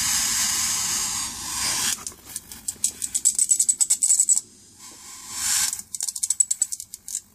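High-voltage output of a Sharp 26-inch CRT TV's flyback transformer: a steady corona hiss for about two seconds, then the anode lead arcing to the chassis in rapid trains of sharp cracks, with a short gap and a brief hiss about five seconds in.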